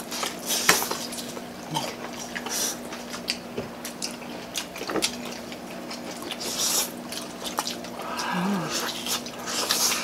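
Close-up eating sounds: wet chewing and mouth smacking with short sharp clicks, as people bite into and chew fried chicken and palabok noodles.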